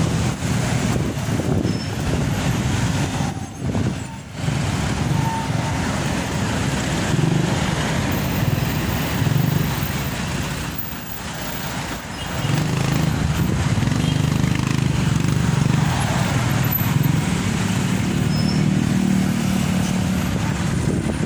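Street traffic noise of cars, vans and trucks with engines running in slow, congested city traffic. It dips briefly about four seconds in and again around eleven seconds.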